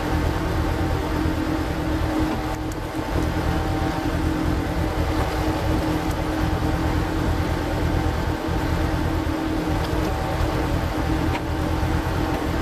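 Power tiller's single-cylinder diesel engine running steadily while driving a screw log splitter, played at double speed, so its hum is raised in pitch. A few faint cracks sound over it.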